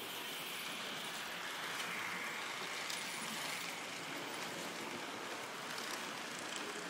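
Märklin HO-scale model train with silver Silberling coaches rolling past close by: a steady rushing of the wheels on the track along with the running locomotive motor.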